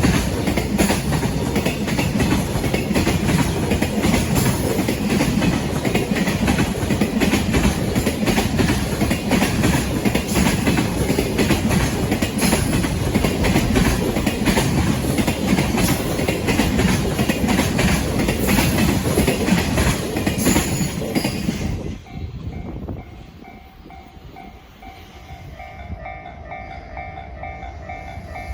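Freight train passing close by, its wheels clattering over the rail joints, until the sound cuts off about 22 seconds in. After that, a quieter level-crossing bell rings in a steady on-off rhythm.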